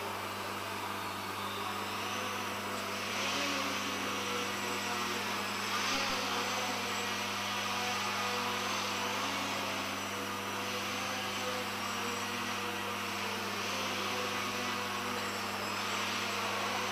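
Leadfeather SkyCart RC model plane's motor and propeller buzzing as it flies, the whine swelling and easing every few seconds and its pitch wavering with the throttle, over a steady low hum.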